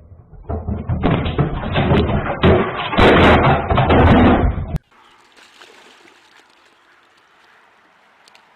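Loud, rapid knocking and banging for about four seconds, cutting off abruptly into faint background noise.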